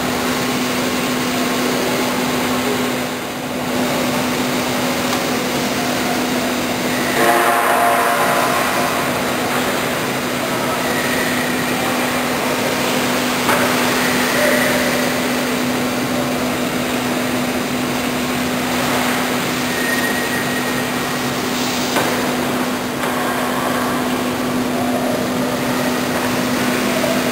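Steady industrial noise of steel-plant machinery running, a dense wash with one constant low hum under it and no clear rhythm.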